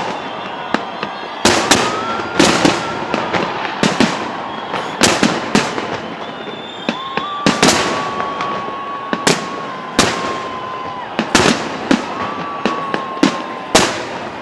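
Fireworks display: a string of sharp bangs at irregular intervals, about one a second, with long, nearly steady whistling tones sounding between them.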